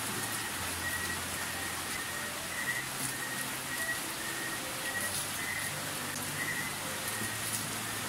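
Water poured from a plastic dipper over a person's body and splashing steadily onto the floor, as in a bucket-and-dipper bath.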